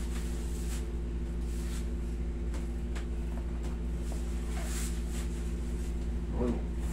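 Steady low hum of a running room air conditioner, with faint soft rustles of hands pressing on a back through a shirt.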